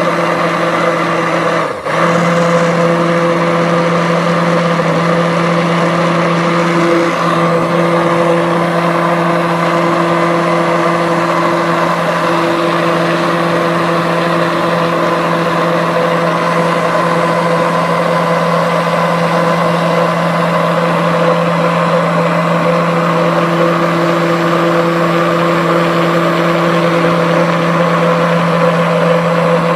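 Handheld stick blender running steadily in a crock pot of liquid-soap batter, giving a constant motor whine as it mixes the coconut and olive oils with the lye solution. It dips briefly about two seconds in, then runs on unchanged.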